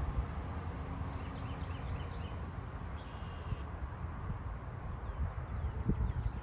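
Small birds chirping, short high calls about twice a second, over a steady low rumble.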